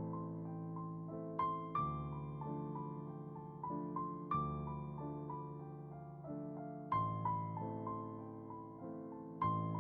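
Slow, gentle solo piano music, single melody notes struck every second or so over soft sustained chords.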